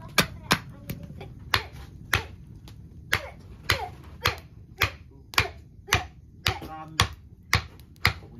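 Machete chopping at bamboo: sharp, regular knocks about two a second, some with a short ring after the blow.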